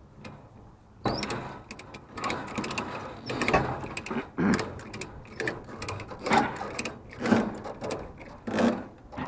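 Ratchet strap being cranked tight: repeated rasping clicks of the ratchet, stroke after stroke about once a second, starting about a second in.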